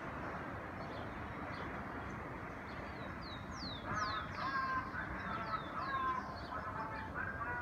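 Birds calling over a steady city background hum: from about three seconds in, a run of high, quickly falling whistles, mixed with short repeated calls.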